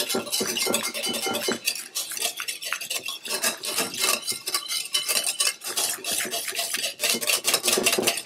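Wire whisk beating thick homemade olive oil aioli in a ceramic bowl, its tines clicking and scraping rapidly against the bowl as lemon juice is whisked into the emulsion.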